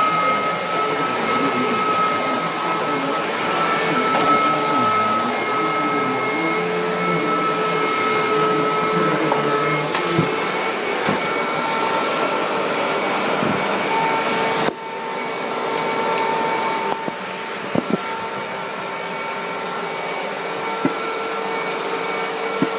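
Hoover WindTunnel bagged upright vacuum cleaner running on carpet, a steady motor whine over the rush of suction air, with a few light knocks. About two-thirds of the way through, its level drops suddenly and its pitch shifts slightly.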